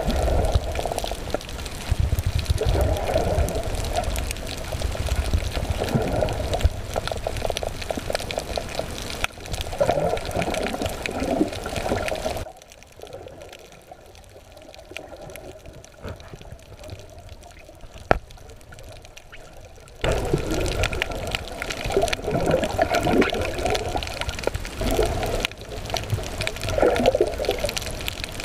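Water sloshing and gurgling around a snorkeler's underwater camera, with surges every few seconds. About halfway through it goes much quieter for several seconds before the sloshing returns.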